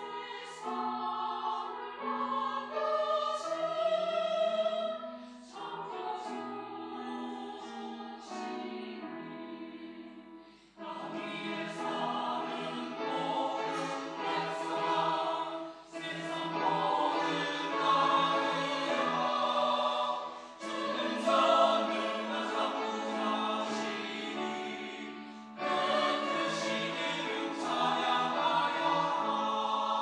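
Mixed church choir, men's and women's voices, singing a choral anthem. It is softer for about the first third, then fuller and louder, with short breaks between phrases.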